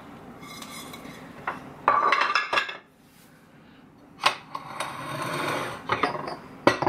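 Ceramic plates and stoneware bowls clinking and knocking against each other as they are set down and lifted from stacks on a table, with a cluster of knocks about two seconds in and more sharp knocks later.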